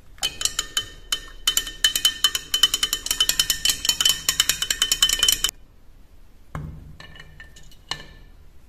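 A thin rod stirring salt into water in a glass jar, clinking rapidly against the glass with a ringing tone for about five seconds. After a short pause there is a knock and a few lighter clinks against the glass.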